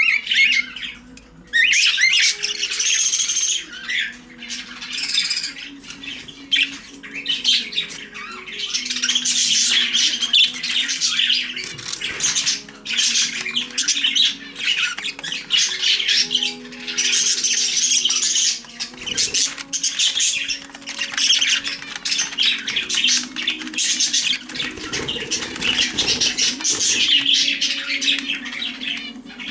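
Budgerigar (parakeet) chattering and warbling in long runs of fast, rapidly changing notes, with brief pauses between stretches.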